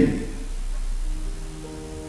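Quiet background music with long held notes fades in about a second in, as the last spoken word dies away.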